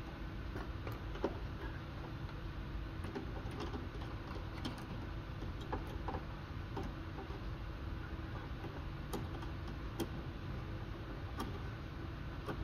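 Scattered light metallic clicks and taps as a ruffler foot attachment is handled and fitted around a sewing machine's needle clamp screw, over a steady low hum.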